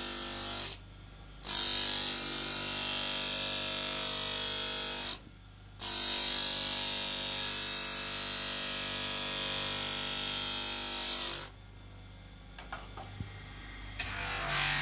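Electric motor turning an abrasive grinding wheel, with a loud steady hiss as the edge of a ceramic dinner plate is ground against it. The grinding breaks off twice for about half a second. Near the end it stops, leaving only the motor's steady hum and a few light clicks.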